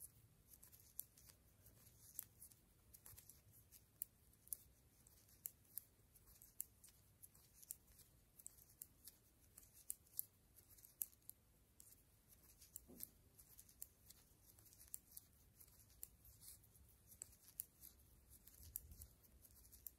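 Faint, irregular clicks of metal knitting needles tapping together as a row of purl stitches is worked, about one or two a second.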